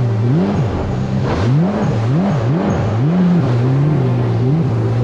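Supercharged Yamaha GP1800R SVHO jet ski's four-cylinder engine running under way, its revs rising and falling repeatedly, about every half second.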